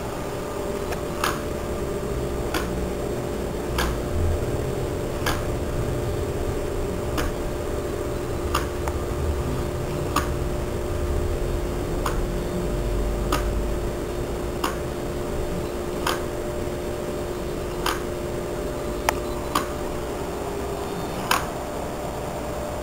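Electronic throttle body's DC motor driven by a PWM signal, giving a steady whine of several tones, with sharp ticks at uneven intervals of about one to two seconds.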